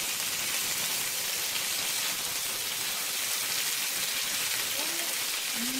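Prawns sizzling in hot oil and sauce in a pan as they are stir-fried, a steady high hiss.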